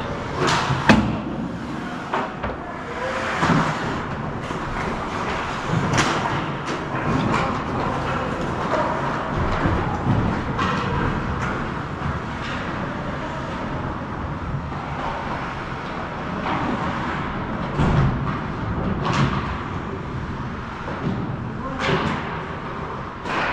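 Hockey game in play: a steady rink din broken by scattered sharp knocks and bangs from sticks, puck and boards, about nine of them at uneven intervals.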